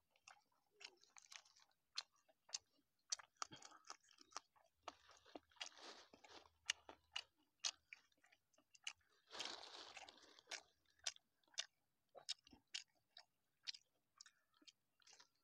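Faint, close chewing of sticky rice and som neua (sour fermented beef): many small wet clicks and smacks of lips and tongue, with two short hissy rustles around the middle.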